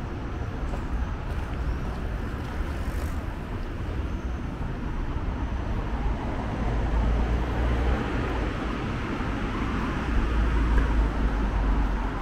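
Road traffic on a city street: a steady hiss of tyres and engines with a low rumble, swelling in the second half as vehicles pass.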